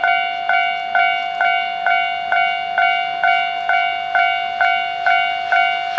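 Japanese level-crossing warning bell ringing: one bright note struck over and over, about twice a second, each strike ringing on briefly before the next. It is the crossing signal warning that a train is approaching.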